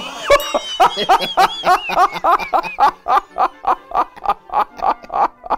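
A man laughing, a long run of ha-ha pulses at about four to five a second, higher-pitched at first and settling lower.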